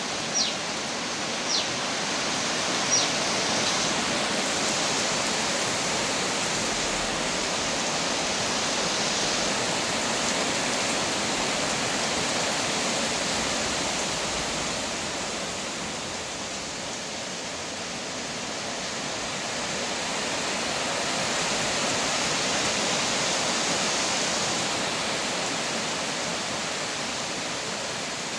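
Steady heavy rain, an even hiss that swells a little now and then. A bird gives three short, falling chirps in the first three seconds.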